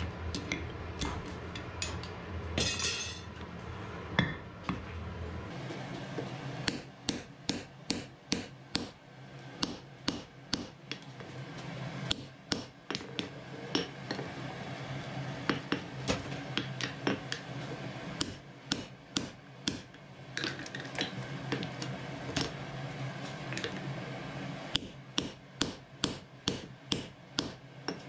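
Hand hammer striking a red-hot iron axe blank on an anvil, in runs of blows about two to three a second with short pauses between them. The anvil has a chain draped across it to damp its ring, so the blows land as dull clanks.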